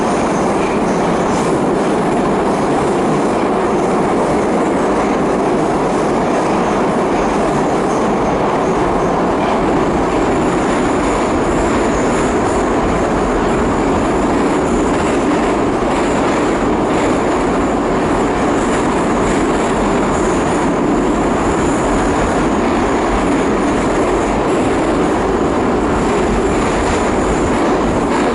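Metro train running between stations, heard from inside the car: a steady, loud rumble of wheels on rail, with a thin high wheel squeal joining about ten seconds in.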